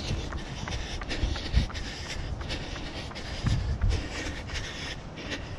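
Footsteps at a steady quick pace, about three a second, with wind buffeting the microphone in low rumbling gusts.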